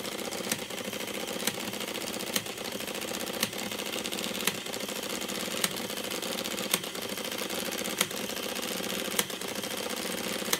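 Sharp EL-1701V printing calculator's printer running nonstop while the equals key is held down, printing line after line onto the paper tape. It makes a steady mechanical chatter with a sharper clack about once a second.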